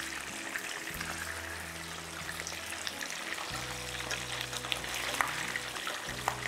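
Boiled chicken pieces sizzling as they brown in hot oil in a pan, with small clicks of metal tongs turning them. Background music with low held notes runs underneath.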